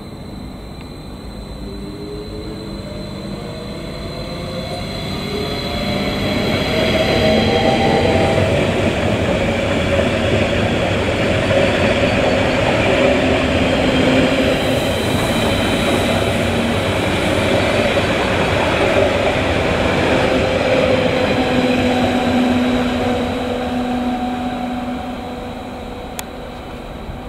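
A train passing through the station: rumble and rail noise build over the first several seconds, hold, and fade near the end. A whine climbs in pitch as it approaches, and there is some wheel squeal.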